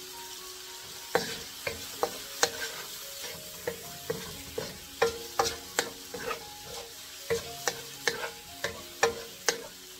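Shrimp, sausage and shallots sizzling in oil in a granite-coated wok, with a wooden spoon stirring them. From about a second in, the spoon knocks and scrapes against the pan in sharp, irregular clacks over the steady hiss.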